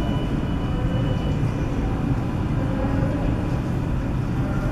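NYC Subway 7 train rolling slowly through elevated-track switches toward the listener: a steady, fairly loud low rumble, with a faint high tone for about the first second.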